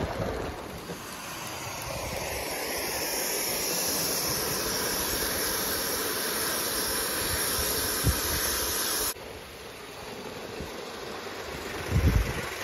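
Gauge 1 live-steam SECR D class locomotive hissing steam as it runs; the hiss builds over several seconds and cuts off abruptly about nine seconds in. After that a quieter rumble of model trains on the track, with a few low thumps of wind on the microphone near the end.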